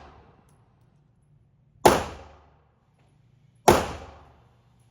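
Two gunshots about two seconds apart, each ringing off in the echo of an indoor firing range, with the tail of an earlier shot fading at the start.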